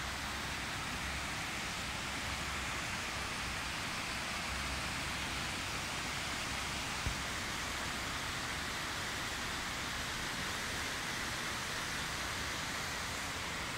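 Heavy rain pouring down in a steady, even hiss, with one faint tap about halfway through.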